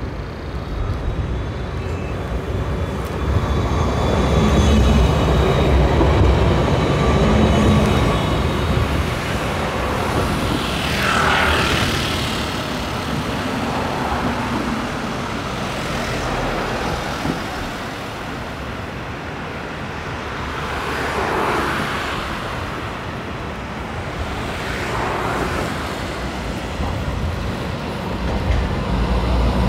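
Street traffic: cars and a motor scooter go by one after another with a steady rumble. Near the end a Siemens Combino tram draws close and grows louder.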